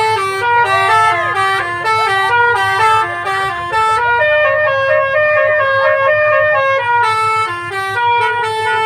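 Telolet bus horn, a set of multi-tone horns playing a quick stepping melody of short notes, with a few longer held notes in the middle. A steady low hum runs beneath it.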